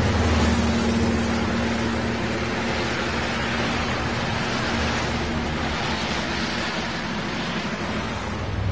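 Road traffic: a continuous wash of tyre and engine noise from passing motor vehicles. A low engine hum fades about two-thirds of the way through, and another vehicle's hum comes up near the end.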